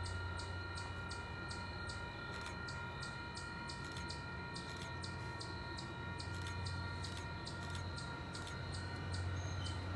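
Railroad grade-crossing bell ringing steadily, a little under two strokes a second, over a steady low hum from the approaching MBTA commuter train.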